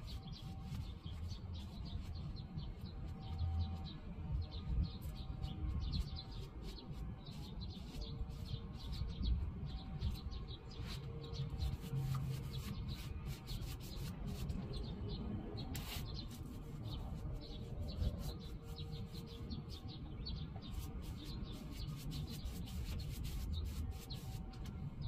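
Brush scrubbing stain onto a wooden door in quick, repeated scratchy strokes, over a low steady background rumble.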